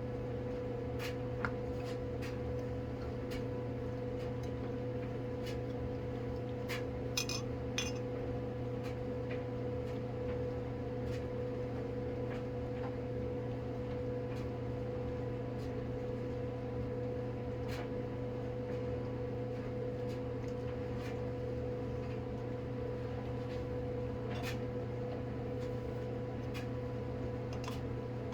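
Light clicks and taps of plastic containers and packing being handled, with a small cluster about seven to eight seconds in, over a steady low electrical hum.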